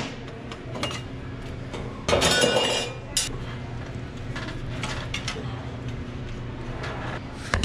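Small metal clinks and clicks of hands and tools working at the electrical terminal cover of a reach-in cooler's compressor. One louder burst lasting about a second comes about two seconds in.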